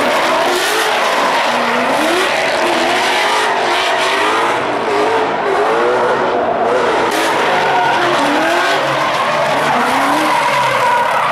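Two Ford Mustang drift cars sliding in tandem, their engines revving up and down over a steady hiss of tyre squeal.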